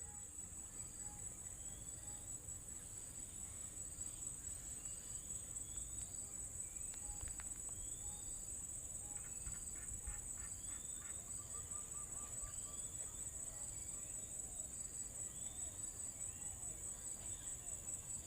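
Wild birds calling in short rising whistled notes over a steady, very high-pitched insect drone that runs without a break. Short notes repeat at an even pace, and a quick run of calls comes about halfway through.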